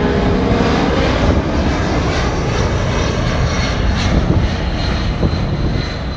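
Boeing C-17 Globemaster III's four Pratt & Whitney F117 turbofans at take-off power as the jet climbs away: a loud, steady, deep jet rumble that begins to fade near the end.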